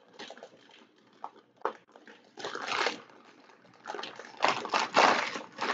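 Clear plastic packaging bag crinkling and rustling in irregular bursts as it is pulled and torn open by hand, loudest near the end.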